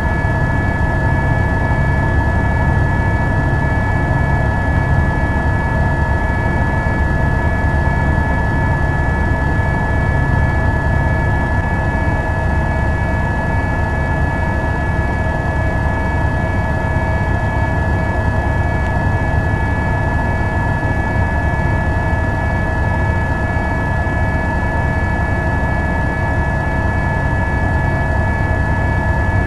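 Helicopter turbine engine and rotor noise, steady and unbroken: a continuous low rumble with a constant high whine over it.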